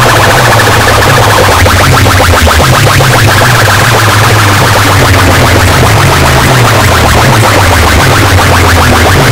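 Electronic dance music blasting from a large DJ sound-box speaker tower pushed at full power in a sound-system competition: very loud, with a heavy bass line.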